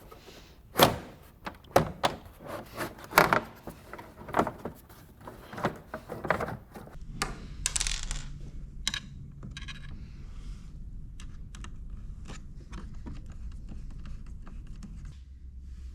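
Plastic side panel and its fasteners being fitted to a personal watercraft: a run of sharp clicks and knocks for about the first seven seconds, then fainter ticks over a low steady hum.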